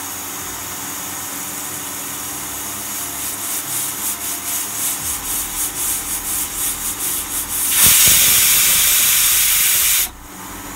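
Pressure cooker whistle: steam hisses from the weight valve of an aluminium pressure cooker, first steadily, then puffing about four times a second as the weight lifts, then bursting into a loud continuous whistle for about two seconds that cuts off suddenly. This is the sign that the cooker has reached full pressure.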